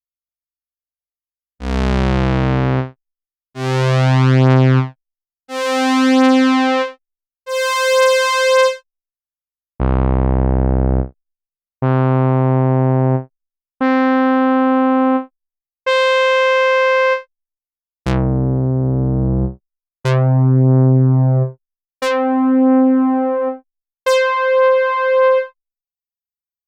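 Behringer Toro analog bass synthesizer playing a run of twelve single held notes, one about every two seconds with silence between, each a different patch. Some are deep bass tones, others higher and brighter, and a few swell or waver in loudness as they sound.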